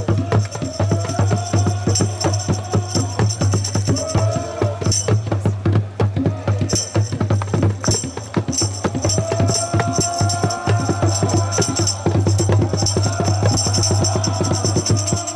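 Percussion music, drums and tambourine, playing a fast, dense beat with a held, wavering melody line above it.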